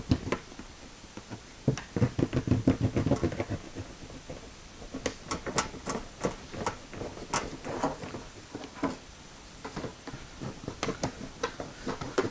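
Knife cutting through the plastic lid of a trash can: an irregular run of scrapes and clicks, busiest a couple of seconds in, then more scattered.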